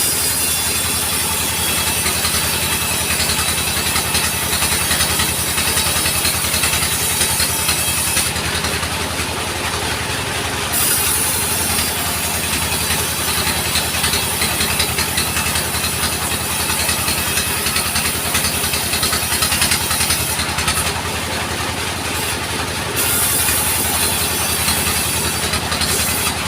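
Sawmill engine running steadily with a fast, even firing pulse, and a high hiss over it that cuts out twice for a few seconds.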